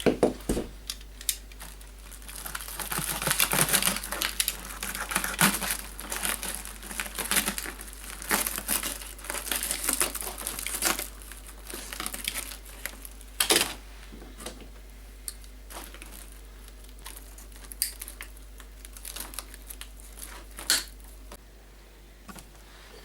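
Wire-reinforced flexible ducting crinkling and tearing as it is cut with a knife, with a few sharp snaps along the way, as of the wire being cut with pliers. The crinkling is densest in the first half and thins out later.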